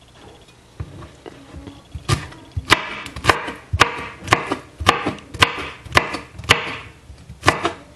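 Kitchen knife chopping pineapple on a cutting board: a run of sharp chops about two a second, starting about two seconds in.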